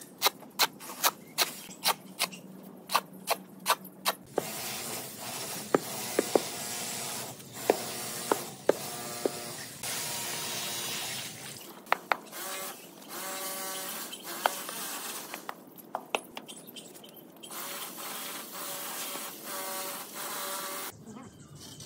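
Steel shovel scraping and striking concrete as it turns a dry sand-and-cement pile, about two sharp strikes a second at first. Then water is poured from a bucket into the mix, a steady splashing pour, and the shovel works through the wet mortar.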